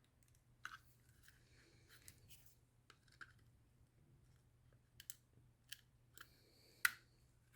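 Faint, scattered small plastic clicks from the buttons of a VW Touareg power-window switch being handled and fitted, the loudest click near the end.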